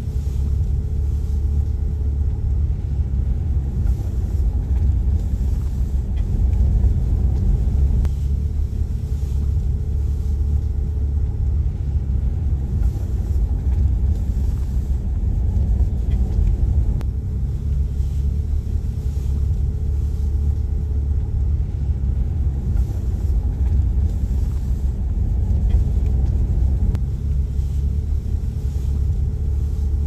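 A car driving along a road, heard from inside the cabin as a steady low rumble of engine and tyres.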